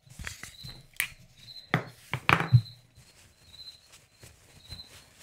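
Handling noise as a jaw harp is taken out of its small case and wrapping: a series of sharp clicks and knocks with some rustling, loudest about two seconds in.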